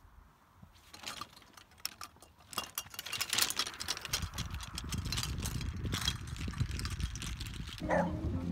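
Golf clubs rattling and clattering together in a carry bag slung on the back of a running golfer, in quick irregular knocks, with a low rumble underneath. Near the end it gives way to a different sound.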